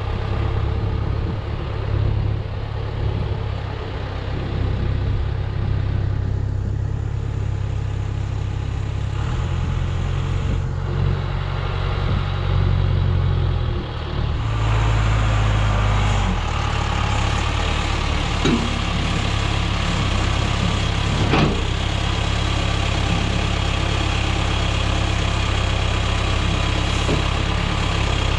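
John Deere 410B backhoe's diesel engine running steadily, its note shifting about halfway through as the loader works. Two brief knocks come later on.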